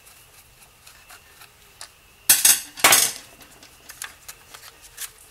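Small clicks and ticks from a screwdriver and the plastic clockspring and steering-column switch assembly of a Jeep Wrangler JK being worked by hand. About two and three seconds in come two loud, brief clattering scrapes as the plastic parts are handled.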